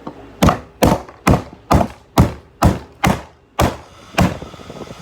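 Hammer blows on a hair dryer: about nine sharp hits in a steady rhythm, roughly two a second, ending about four seconds in.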